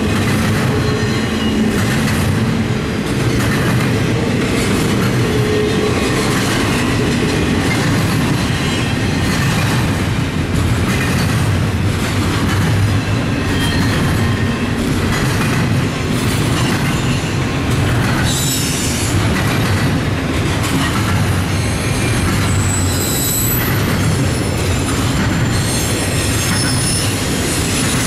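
Union Pacific double-stack intermodal train rolling past steadily: a continuous rumble of the container cars with frequent clicks of the wheels over rail joints. From a little past halfway, high thin wheel squeal joins in.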